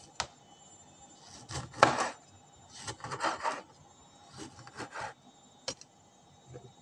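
Kitchen knife cutting tomato wedges on a plastic cutting board: a sharp tap of the blade just after the start, then several short rasping cuts in three groups, the loudest about two seconds in, and another tap near the end.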